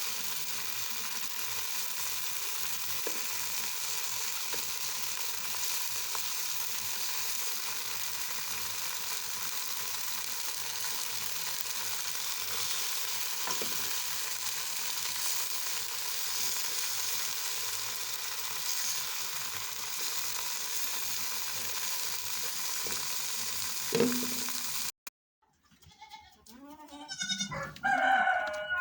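Tomatoes and eggs sizzling steadily in a frying pan, with a few light clicks of stirring and one sharper knock just before the sound cuts off. After the cut, farm animals bleat, several wavering calls close together.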